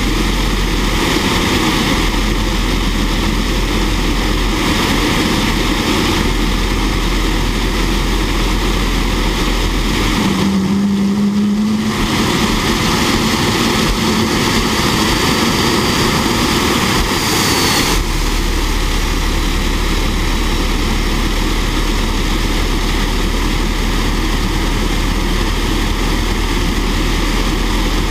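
Fairchild J44 turbojet engine running, a loud, steady jet noise. Its sound shifts briefly about ten seconds in, with the hiss dropping away for a moment and a short low hum.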